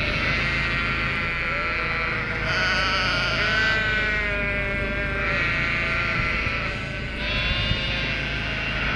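A large flock of sheep bleating, many calls overlapping one after another.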